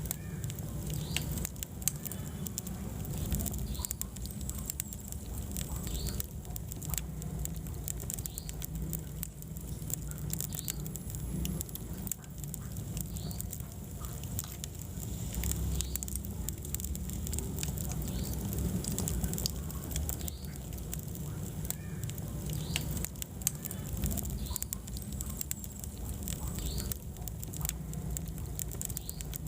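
Wood fire burning in a fireplace: a steady low rumble of flames with frequent small crackles and pops scattered irregularly through it.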